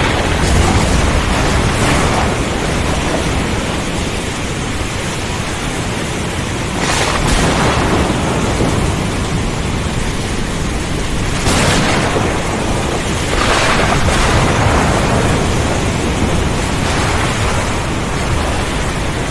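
Thunderstorm with heavy rain: a dense, steady rush of rain over a deep, continuous rumble of thunder, with brief swells of louder hiss about seven, eleven and thirteen seconds in.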